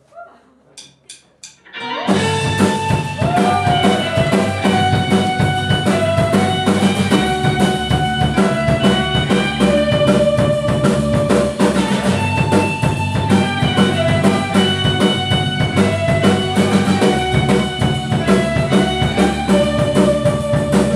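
A live rock band starts a song: four sharp clicks count it in, then about two seconds in drum kit, electric guitars, bass and keyboard come in together and play on loudly.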